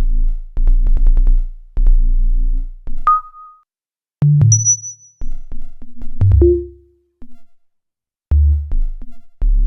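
Electronic music: low synthesizer bass notes and clicking drum-machine beats, stopping and starting with short silent gaps, with two brief high pinging tones about three and four and a half seconds in.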